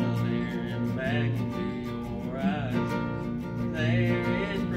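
A man singing while strumming an acoustic guitar in a steady rhythm, his sung phrases rising and falling in pitch over the ringing chords.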